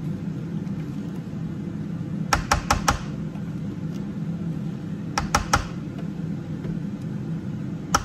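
A Cecotec Cecofry air fryer preheating, its fan running with a steady low hum. Two short runs of sharp, slightly ringing taps, about four a little over two seconds in and three more past five seconds, as a silicone spatula knocks against the stainless-steel robot jug while the batter is scraped out.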